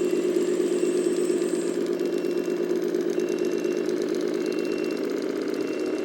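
RC model truck's engine sound running steadily at an even idle, with a faint short high beep repeating about once a second.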